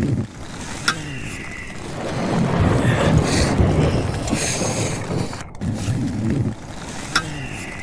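Strong wind gusting and buffeting the microphone. A gust swells about two seconds in and eases after about five seconds, with two sharp clicks.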